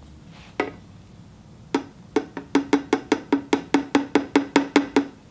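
A quick, even run of hollow knocks, about five a second, each with a short ring, after a single knock near the start.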